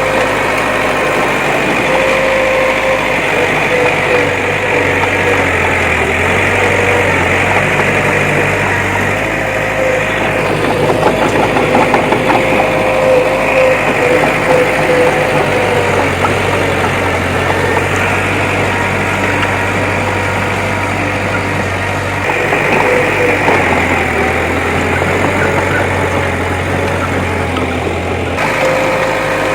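Heavy earthmoving machinery running steadily, a diesel engine with a wavering whine over it.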